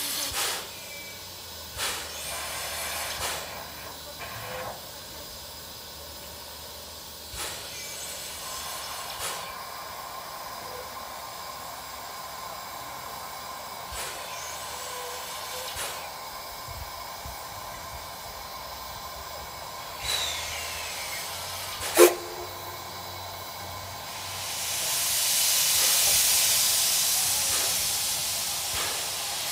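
C11 steam locomotive standing with steam hissing steadily. About three-quarters of the way through there is one sharp bang, and then a loud hiss swells up as steam is blown out of the cylinder drain cocks at the front.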